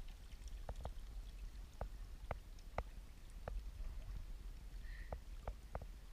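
Quiet shallow-river sound around a wading angler: a low steady rumble with scattered sharp ticks of dripping and splashing water at irregular intervals.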